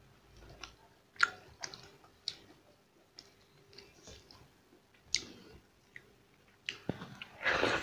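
Eating sounds: chewing, with scattered sharp mouth clicks and smacks and fingers mixing wet rice and dal, ending in a longer, louder squelch.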